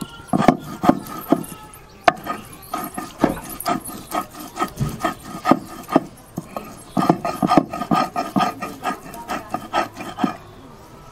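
Stone roller scraping back and forth on a flat grinding stone (sil), grinding a wet paste of coriander leaves, ginger and green chili: a rapid rhythmic run of rubbing strokes, a few a second, that stops shortly before the end.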